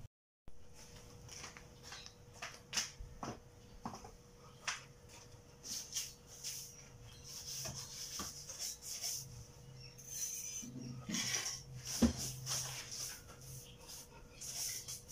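Scattered knocks, clinks and brushing sounds of someone moving things about and sweeping in a shop, over a faint steady hum.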